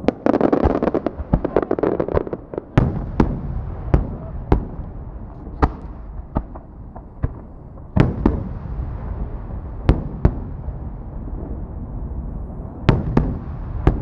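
Aerial fireworks shells bursting overhead. The first two seconds or so are a dense run of rapid pops and crackle; after that come about a dozen single sharp booms, some in close pairs, with a low rolling rumble between them.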